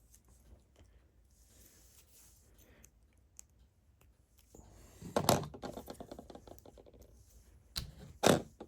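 Small plastic LEGO pieces being handled: soft rustling of a small plastic parts bag, then a quick run of light plastic clicks about five seconds in and a sharp click near the end.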